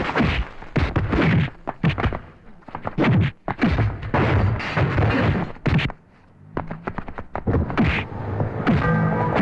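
Film fight sound effects: a rapid run of punch and body-blow impacts with whooshes. There is a brief lull about six seconds in, and music with held notes comes in near the end.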